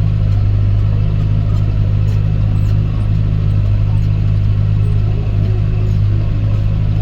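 Tractor engine running steadily under load while pulling a plough, a constant low drone.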